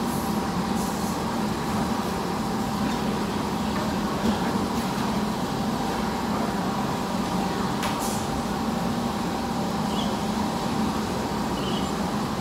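Steady ambient hum and rumble of a large open hall, with a few faint clicks.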